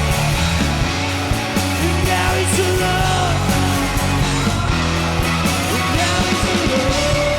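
Live rock band playing loud and steady, with singing.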